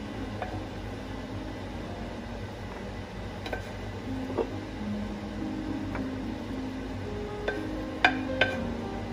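Soft background acoustic guitar music, with a handful of sharp clinks and knocks as fried rice is scooped from a cast iron skillet into a glass baking dish. The loudest two clinks come close together near the end.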